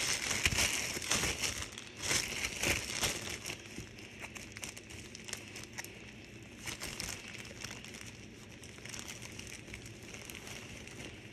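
Plastic bread bag crinkling as it is handled, densest in the first few seconds, then lighter crackles.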